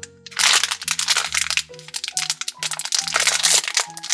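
Crinkling of a surprise-toy blind-pack wrapper being torn open and handled in bursts, over light background music with steady low notes.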